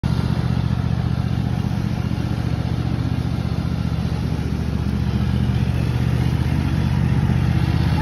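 Riding lawn mower's engine running steadily while mowing grass, getting a little louder near the end as it comes closer.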